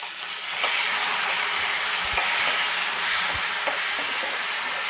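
Chopped tomatoes sizzling in hot oil in a kadai, the sizzle rising about half a second in and then running steady, with a few light taps of a metal spoon stirring them.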